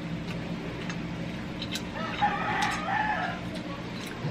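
A rooster crowing once, about two seconds in and lasting a little over a second, over a steady low hum.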